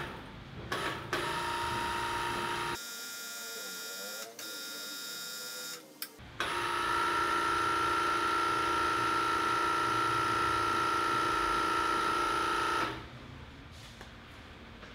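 Electric hydraulic pump of a shop-built hydraulic press running with a steady whine as the ram extends, worked from the pendant push-button control. A few clicks come just before it starts. The whine changes tone for a few seconds in the middle and cuts off about thirteen seconds in.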